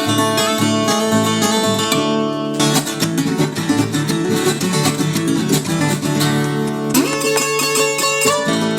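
Background music led by plucked acoustic guitar with a steady, busy rhythm.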